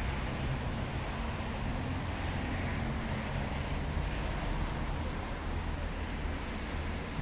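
Steady outdoor city ambience: a continuous low rumble with a hiss over it, unbroken and even in level.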